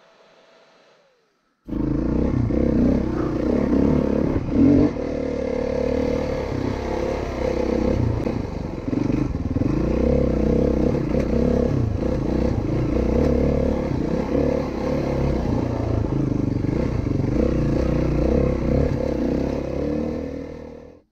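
Single-cylinder four-stroke dirt bike engine running on a trail ride, its pitch rising and falling, with clatter over the top. It cuts in abruptly about two seconds in and drops away just before the end.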